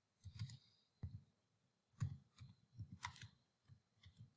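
Faint typing on a computer keyboard: a scatter of soft, uneven keystroke clicks, most closely bunched about two to three seconds in.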